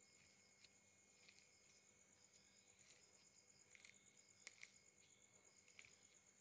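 Near silence, with a faint, steady, high-pitched insect trill pulsing rapidly throughout and a few soft clicks, the loudest about four and a half seconds in.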